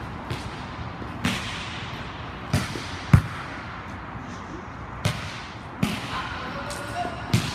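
Volleyballs being struck and landing on the sport-court floor: about seven sharp slaps and thuds, irregularly spaced a second or so apart, with the loudest about three seconds in, each ringing briefly in a large, echoing hall.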